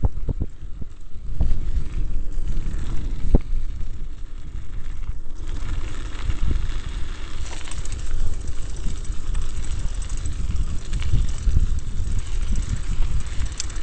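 Mountain bike descending a gravel road at speed: wind buffeting the microphone over the tyres' rumble on gravel, with scattered knocks and rattles from bumps. A brighter hiss comes in about halfway through.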